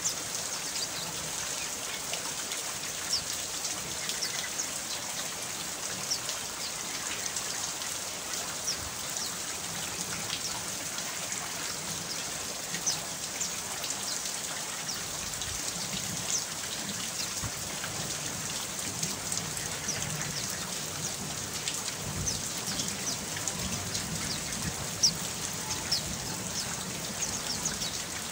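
Steady rain falling, an even hiss with sharp, high drop ticks scattered all through it.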